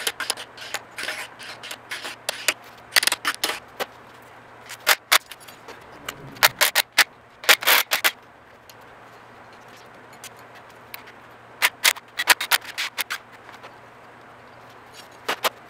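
Steel hand tools clicking and clanking on the top of an MG TD's XPAG engine, a ratchet and socket working the nuts on the cylinder head. The sound comes in short clusters of sharp metallic clicks with pauses between them.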